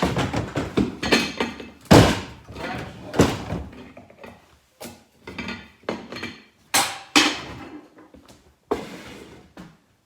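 A string of knocks, clunks and rattles of hard objects being handled and set down, irregular and uneven in loudness, with the sharpest knocks about two seconds in and around seven seconds.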